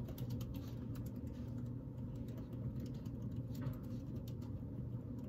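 Typing on a laptop keyboard: a patter of light key clicks over a steady low whir from the laptop's fan, which is running really loud.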